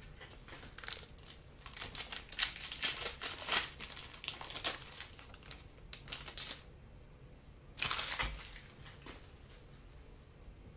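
Foil wrapper of a trading-card pack crinkling and tearing as it is ripped open by hand. A quick run of crackles lasts about six seconds, with one more short crinkle about eight seconds in.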